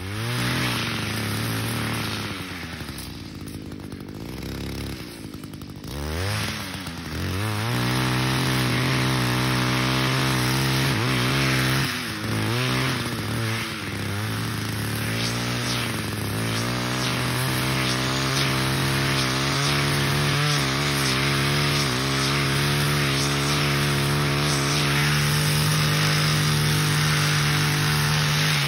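Gas weed eater fitted with a brush-cutting blade, cutting brush: its engine revs up and down repeatedly through the first half, then holds at high revs.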